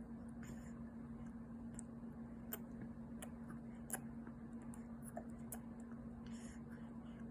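Faint scattered clicks and small wet smacking sounds of a young baby sucking and swallowing during a feed, over a steady low hum.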